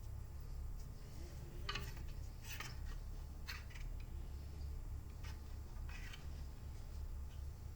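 A wire weeder making about five short, sharp scraping strokes through soil and weeds, spaced irregularly, over a steady low rumble.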